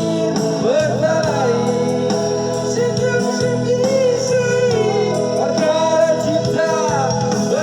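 A Malay-language pop song: a gliding vocal melody over steady instrumental backing.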